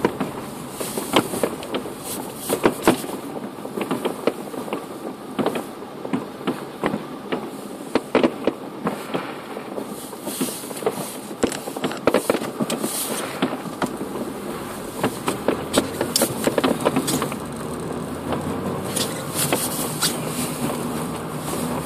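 Inside a moving car: steady engine and road noise with many irregular sharp bangs and pops from New Year's fireworks going off around the car.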